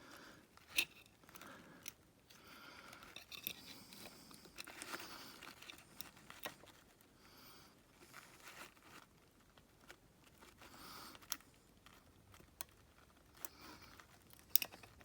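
Quiet hand work on an engine: scattered sharp clicks and short scraping and rustling as small hand tools and metal parts are handled, with a louder click about a second in and another near the end.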